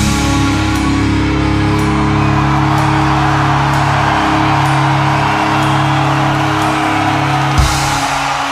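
Live heavy metal music: distorted guitar and bass hold long sustained chords over drums, with one sharp drum hit near the end.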